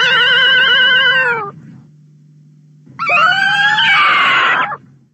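Two wavering, high cries of the juvenile Godzilla monster (Baby Godzilla / Godzilla Junior) from the Toho films, each about two seconds long, with a faint low hum between them. The first call sags in pitch as it ends. The second rises and turns rougher partway through.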